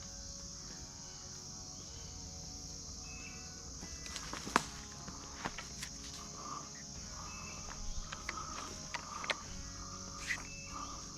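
A steady, high-pitched insect chorus, with footsteps crunching through dry brush and twigs snapping from about four seconds in, one sharp snap the loudest.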